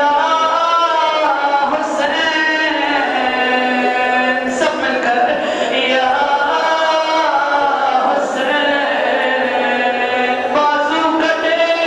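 A single voice chanting a melodic religious recitation, with long held notes that glide up and down between short breaths.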